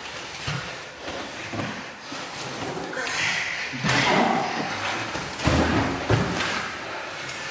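Two men grappling on a mat: bodies shifting and scuffling, with several dull thuds about two-thirds of the way through.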